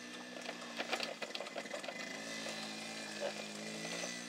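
A small motorbike engine running steadily, its pitch shifting about two seconds in.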